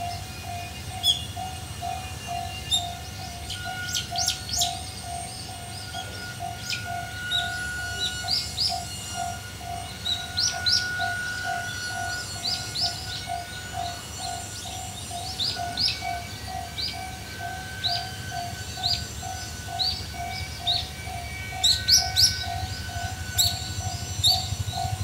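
Railway level-crossing warning bell ringing steadily at about two strokes a second, the signal that a train is approaching, with birds chirping over a low rumble.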